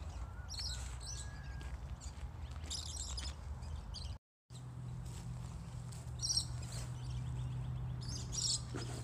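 Birds chirping in several short bursts over a low, steady outdoor background noise. The sound drops out for a moment about four seconds in, and a low steady hum runs under it afterwards.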